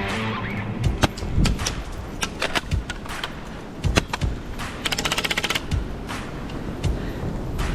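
Airsoft guns firing: scattered single cracking shots, and a rapid full-auto burst of about a dozen shots about five seconds in.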